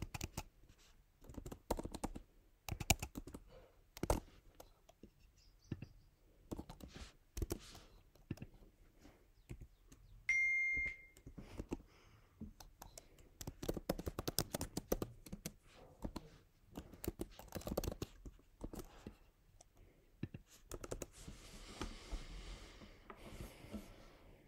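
Typing and clicking on a laptop keyboard, irregular taps in bursts. A short electronic beep sounds once, about ten seconds in, and is the loudest sound. A brief rustle comes near the end.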